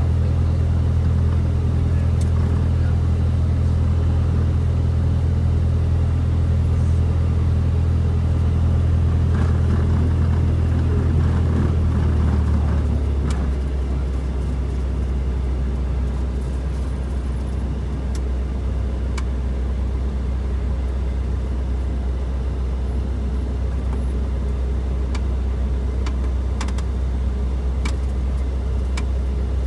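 A Cessna 172 Skyhawk's piston engine and propeller heard from inside the cabin while taxiing: a steady low drone. About 13 seconds in, it drops in pitch and a little in loudness as the engine speed comes down, then holds steady at the lower speed.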